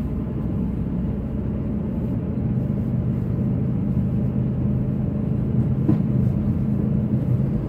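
Inside a moving car: steady engine and road noise while driving, a low even hum with no changes in pace.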